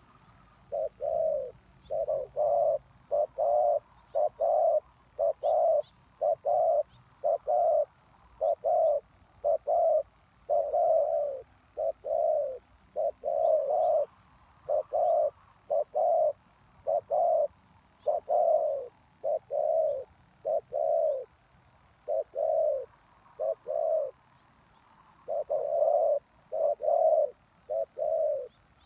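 Spotted dove cooing over and over: a long series of low coos, each under a second, grouped in twos and threes with short pauses between phrases.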